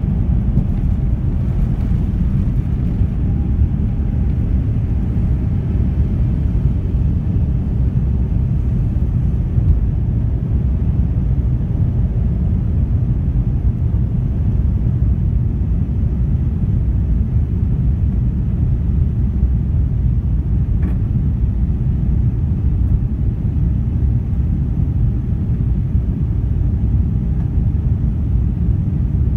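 Jet airliner's engines at takeoff power heard from inside the passenger cabin: a loud, steady low rumble through the takeoff roll and climb-out.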